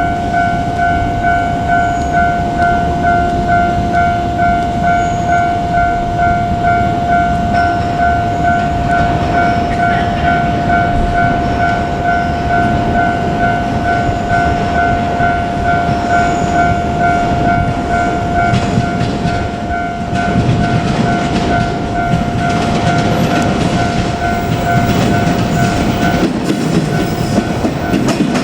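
Japanese railway level-crossing warning bell ringing in a fast, steady repeated ding, stopping about two seconds before the end. From about twenty seconds in, a JR Kyushu 817 series electric train runs past with wheel clatter.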